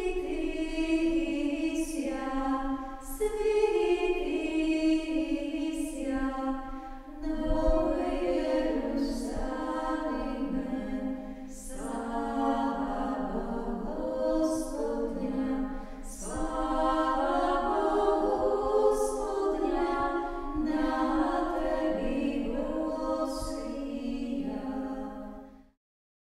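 Unaccompanied choir singing a chant in slow, held notes, which cuts off abruptly near the end.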